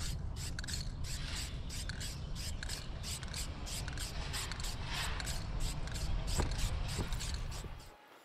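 Aerosol can of black high-gloss spray paint hissing in short, rapid bursts, about three a second, over a low steady rumble that cuts off near the end.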